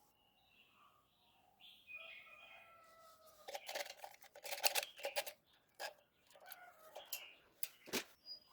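Quiet light clicks and taps of small objects being handled, with a few faint bird chirps in the background during the first few seconds.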